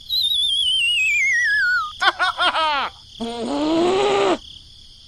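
Cartoon-style sound effects: a warbling whistle slides down in pitch for about two seconds, then a quick run of short springy falling chirps, then a brief voice-like moan.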